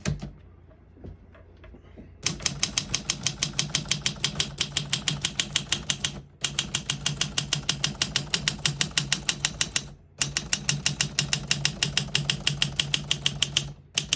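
1958 Olympia SM3 manual portable typewriter being typed on, its typebars striking the platen in a fast, even run of about seven keystrokes a second. The typing starts about two seconds in and breaks off briefly twice.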